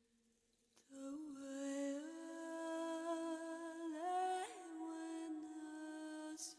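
A woman's voice humming long held notes that slide slowly up and down between pitches, coming in about a second in after near silence.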